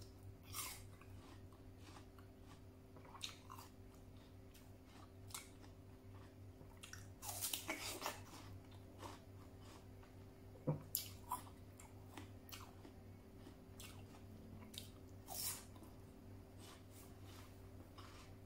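Raw pear slices being bitten and chewed close to the microphone: irregular crisp, wet crunches, with a burst of louder bites about seven to eight seconds in and more around eleven seconds.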